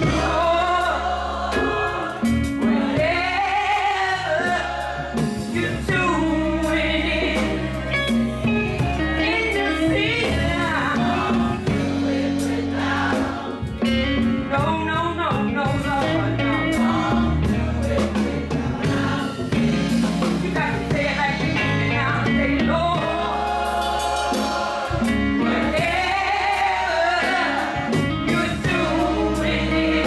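Gospel choir singing with instrumental backing, a steady low bass line under the voices.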